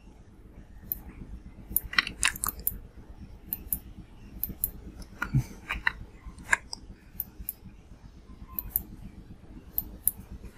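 Sharp clicks of a computer mouse and keyboard at irregular intervals, some in quick clusters of two or three.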